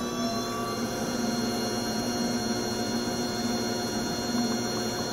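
AE 10DCA 10-quart commercial mixer's motor and gear transmission running steadily just after being switched on: an even hum with a higher whine above it.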